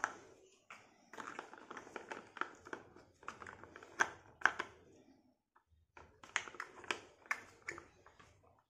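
Hands handling a plastic toy tanker truck and pushing a tyre onto its wheel: a run of small plastic clicks, taps and rubbing, with a short pause a little past halfway.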